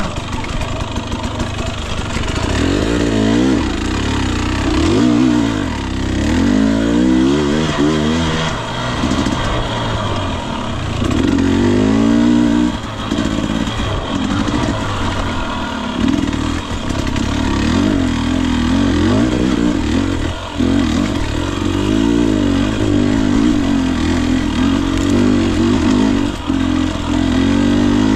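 Husqvarna TE250i two-stroke fuel-injected dirt bike engine being ridden on singletrack. Its pitch rises and falls over and over as the throttle is opened and closed, with a few brief drops in level along the way.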